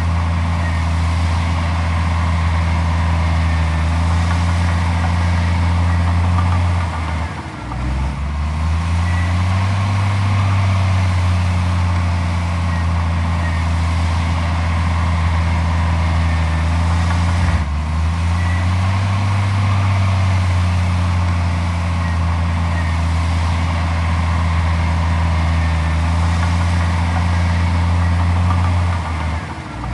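Heavy diesel engine of earthmoving machinery running steadily. Its pitch dips briefly and climbs back three times: about a quarter of the way in, past the middle, and at the very end.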